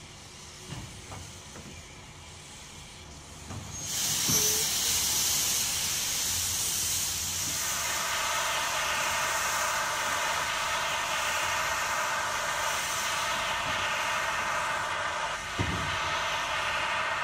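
Steam locomotive standing with a few light knocks. About four seconds in, a loud hiss of escaping steam starts and keeps on steadily, and it takes on a ringing, whistling edge from about eight seconds in.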